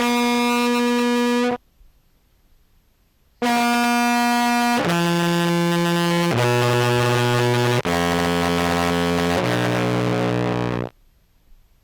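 Contrabass clarinet played through a fuzz-pedal chain (Jackson Audio Modular Fuzz), giving heavily distorted, buzzy held notes. One note cuts off abruptly, a brief silence follows, then a run of about five sustained notes at changing pitches that stops suddenly near the end.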